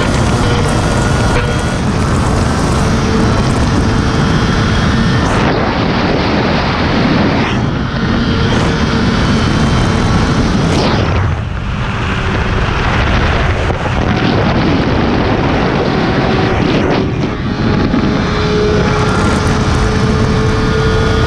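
Sport motorcycle running at highway speed, its engine's steady drone buried under heavy wind noise on the microphone, with a few brief dips in the sound along the way.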